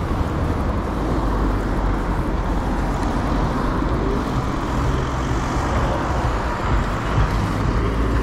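Steady wind rush on the microphone and tyre rumble from riding a QuickVolt 8 electric kick scooter along a street.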